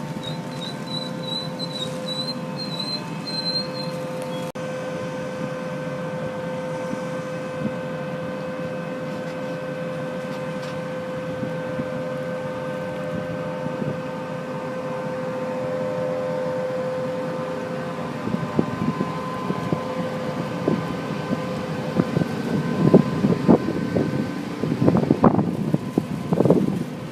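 A train running at the station with a steady droning tone. Gusts of wind buffet the microphone in the last few seconds.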